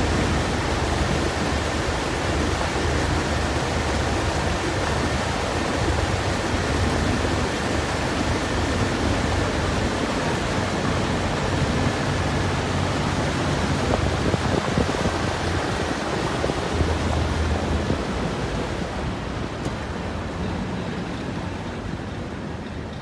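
Motorboat under way on a lake: a steady rush of wind and water over a low engine hum. It eases off over the last few seconds as the boat slows toward the pier.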